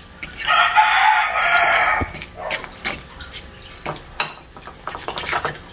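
A rooster crows once, a long held call starting about half a second in. A fork clicks and scrapes against a glass bowl while mixing mashed pumpkin and egg.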